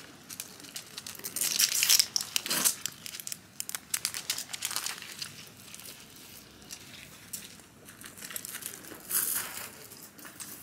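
Irregular crinkling and rustling, like something crumpled by hand, loudest about two seconds in and again near the end.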